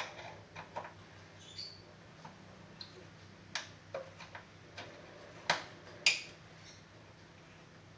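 Irregular metallic clicks and clinks of an Allen key tightening the nuts and bolts that hold an RCF LF18X400 18-inch woofer into a plywood cabinet. The two loudest clicks come about five and a half and six seconds in.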